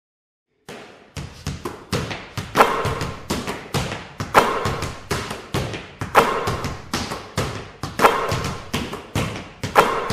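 Basketballs dribbling in a fast, steady rhythm of many bounces, with a louder bounce about every two seconds. It starts a little under a second in.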